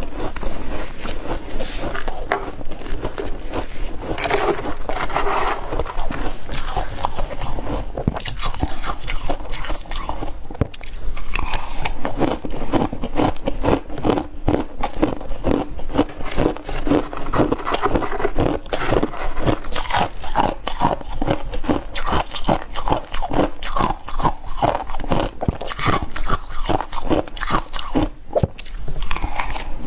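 Close-miked biting and chewing of freezer ice and frost: a continuous run of rapid, crisp crunches, bite after bite.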